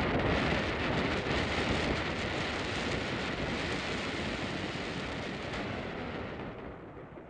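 Wind rushing over the microphone aboard a moving river ferry: a steady, loud rush that fades away near the end.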